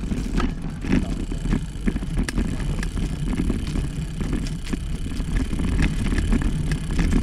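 Bicycle riding noise: wind buffeting the microphone and tyre rumble over the road, with scattered clicks and rattles.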